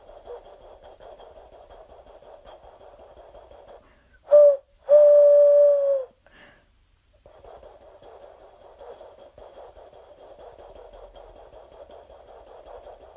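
A person imitating a train with their voice: a steady breathy chugging that breaks off about four seconds in for two loud whistle-like toots, a short one and then a longer one that dips at its end. After a brief pause the chugging starts again.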